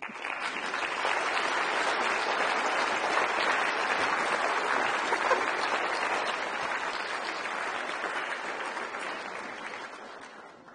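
Audience applauding a finished lecture. The applause builds within the first second or so, holds steady, and tapers off over the last couple of seconds.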